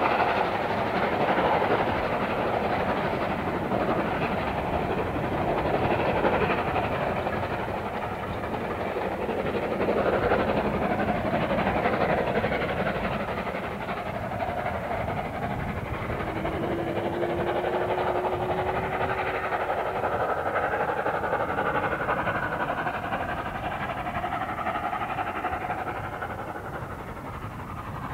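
Steam locomotive hauling a passenger train past, its exhaust and the rumble of the coaches' wheels on the track, growing fainter as the train draws away.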